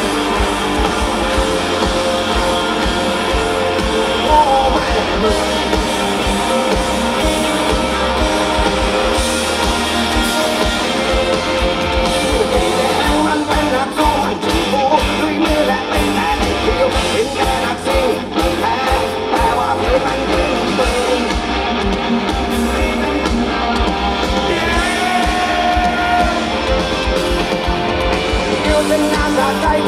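A rock band playing live, with singing over electric guitar and drums, loud and continuous.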